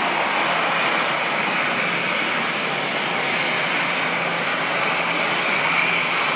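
Jet airliner's engines at takeoff thrust as it rolls down the runway and climbs out: a loud, steady rushing noise with a brighter hiss-like band high up.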